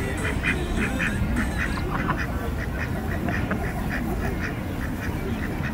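Ducks quacking in a quick run of short quacks, about three a second, thinning out near the end, over a steady low rumble.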